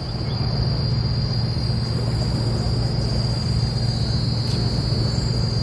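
Steady low rumbling drone with a continuous high-pitched insect buzz above it.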